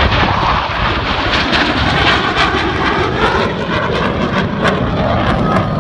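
F-16 fighter jets flying over, a loud, steady jet engine noise with a rough crackle running through it.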